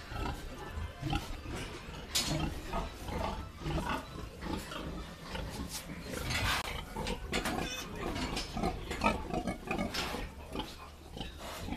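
Domestic pigs, a sow and her piglets, grunting and calling in short, irregular sounds, with an occasional sharp higher sound mixed in.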